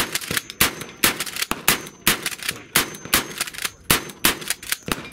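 Rapid shotgun fire from a DP-12 double-barrel pump-action 12-gauge, with shots coming about every third of a second. The string of sharp blasts is dense enough that gunfire from other shooters on the range is mixed in.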